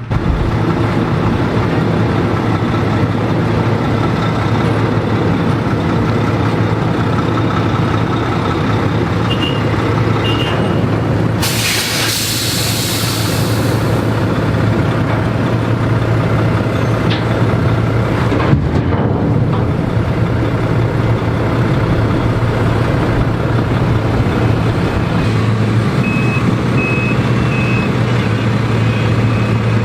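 Heavy diesel equipment running steadily, with a burst of air hiss lasting about two seconds roughly twelve seconds in. Short high beeps sound twice, about ten seconds in and near the end.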